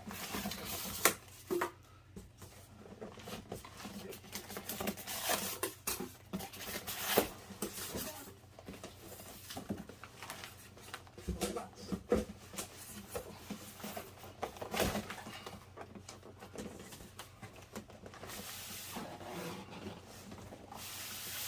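A cardboard shipping box and its packing being shifted and tipped: irregular rustling and scraping with a few sharp knocks, the loudest about a second in and again around 7, 12 and 15 seconds.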